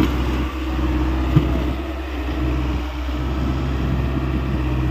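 Hyundai 85A excavator's diesel engine running steadily, with a single short knock about one and a half seconds in.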